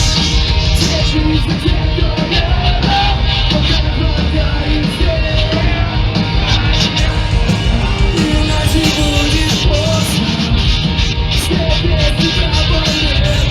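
A live punk/emo band playing loud through a club PA: distorted guitars with a wavering melody line, driving drums and bass, and sung and yelled vocals.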